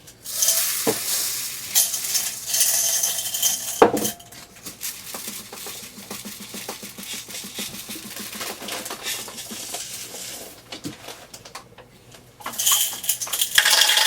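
Homemade shaker of glass beads in a plastic sipper cup being shaken, a loud rattle of beads against the plastic. It eases off about four seconds in and turns loud again near the end.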